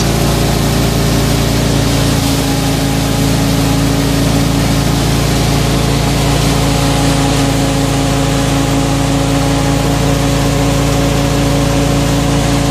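Wheat thresher running steadily at working speed, belt-driven by a FIAT 640 tractor's diesel engine: a loud, even machine drone with a steady rushing noise over it.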